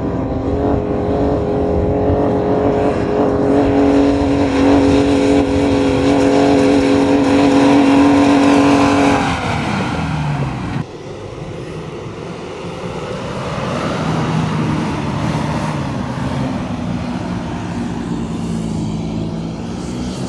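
Off-road 4x4's engine revved hard and held at high revs for about nine seconds as it labours up a soft-sand dune slope, then the revs fall away. After a sudden change near eleven seconds, a quieter, lower engine note rises and falls.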